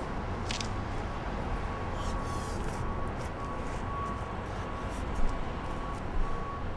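City street background noise: a steady low traffic rumble, with a faint steady high tone that drops in and out and a couple of short louder sounds in the second half.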